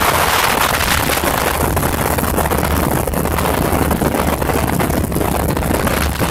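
Motorcycle engine running steadily under way, a constant low hum, with heavy wind buffeting the microphone.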